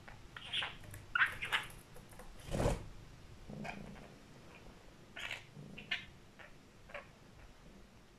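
Budgerigar chirping in short separate calls, with a brief flutter of wings about two and a half seconds in as it flies onto the cat's back.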